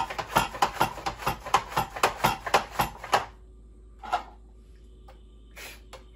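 Rapid-Prep Mandoline's plunger pumped quickly, its blade cutting a carrot into skinny sticks with about five knocks a second. The knocks stop about three seconds in, and one more stroke comes about a second later.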